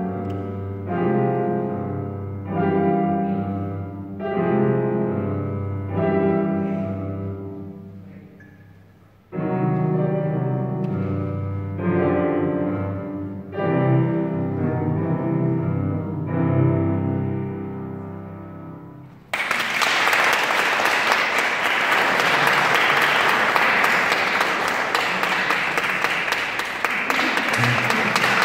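Piano played four hands: a series of chords struck about every two seconds, dying away about nine seconds in before the playing resumes and ends on a fading final chord. Applause breaks out about nineteen seconds in and continues.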